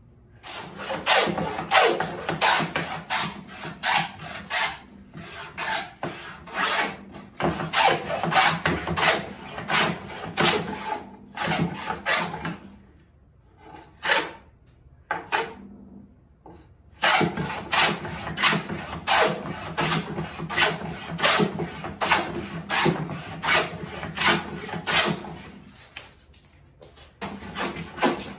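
Small hand plane shaving wood, in quick repeated strokes with a short lull about halfway through.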